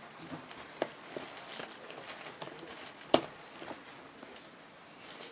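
Latex rubber garment being handled, with soft rustling and a few small clicks. About three seconds in, one sharp loud snap as a metal press-stud on a red-trimmed latex flap is worked.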